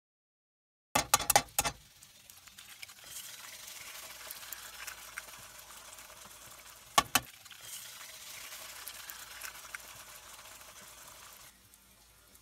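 Eggs and diced vegetables frying in a stainless steel skillet: a steady sizzle with small crackles that stops shortly before the end. A few sharp taps come about a second in, and one more about seven seconds in.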